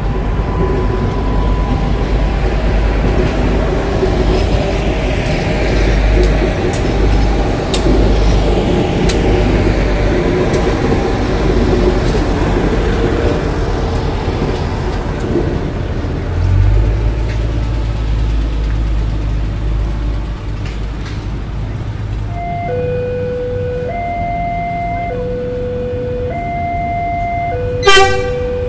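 Passenger train rolling past close by, a steady rumble with wheels clacking over the rail joints. Later the level-crossing warning alarm sounds in two tones alternating about once a second, and near the end an approaching train gives one short, loud horn blast.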